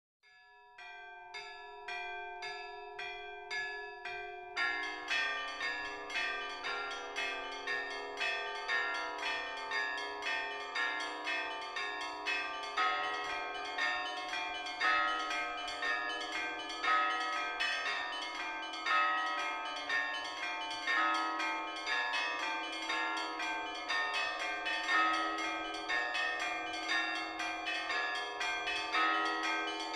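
Orthodox church bells being rung. The small high bells strike in a quick repeating rhythm, then about four and a half seconds in the lower, deeper bells join and the full peal carries on in a steady repeating pattern.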